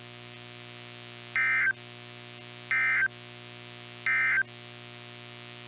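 Three short buzzy digital data bursts from a NOAA Weather Radio broadcast, about a second and a half apart: the Emergency Alert System SAME End of Message (EOM) code that closes the Shelter In Place Warning, over a steady radio hum.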